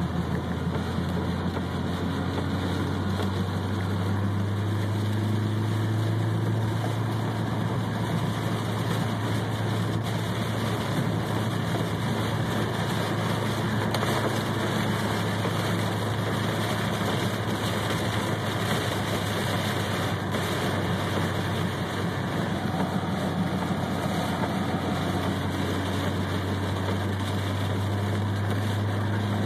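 Steady cabin noise of a car driving through a heavy rainstorm: a low engine and road hum under an even hiss of rain and tyre spray on the wet highway.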